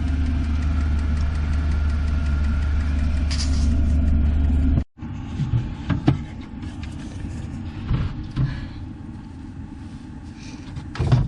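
Steady low rumble of an idling engine that cuts off abruptly about five seconds in, followed by quieter background with a few scattered knocks and clunks.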